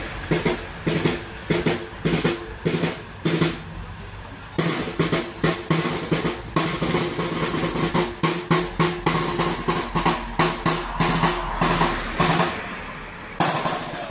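A marching drum carried by a walker, struck in a steady march beat of two or three strokes a second, pausing briefly twice.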